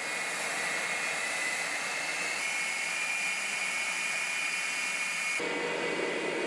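Sukhoi Su-35 fighter's twin turbofan engines running at taxi power: a steady rushing noise with a high whine that steps up a little in pitch about two seconds in. Near the end the sound changes abruptly to a lower, deeper whine.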